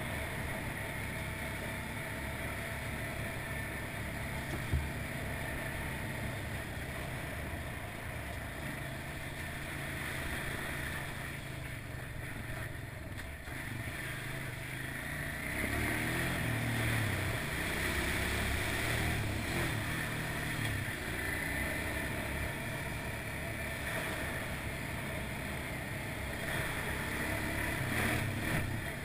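ATV engine running steadily as the quad drives along a wet gravel trail, with tyre and wind noise. It gets somewhat louder past the halfway point, and there is a single short knock about five seconds in.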